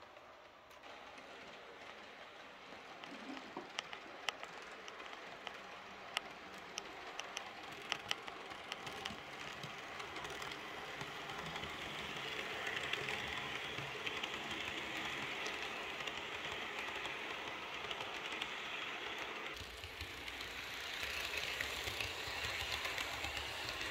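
H0 model train rolling over the layout's track and points. Its wheels give sharp clicks over the rail joints, then settle into a steady rolling hiss that grows louder as the coaches pass close. About 20 seconds in, the sound turns abruptly louder and deeper.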